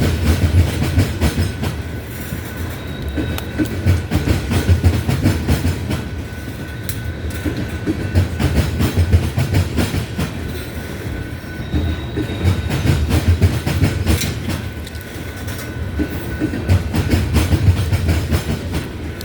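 Tank cars of a Union Pacific ethanol unit train rolling past: a low rumble of steel wheels with rapid clicking over the rail joints, swelling and easing every few seconds as each car goes by. A faint steady high whine sits above it.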